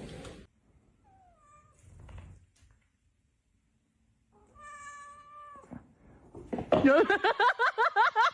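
A cat meowing: a faint short falling meow, then a longer steady one; about two-thirds of the way in, a louder, rapidly repeating run of wavering pitched calls starts and carries on.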